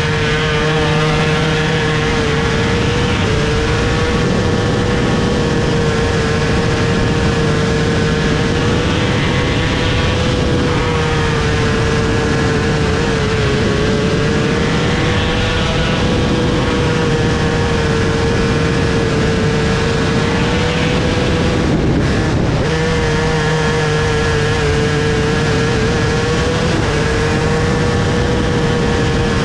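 Onboard sound of a Sportsman micro sprint car's motorcycle engine running hard at high revs through the laps, a loud, steady, high-pitched note that wavers a little with the throttle. The note breaks off for a moment about three quarters of the way through, then picks back up.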